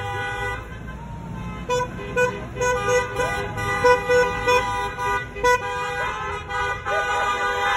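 Several car horns honking at once in celebration, some held in long blasts while another taps out a string of short toots.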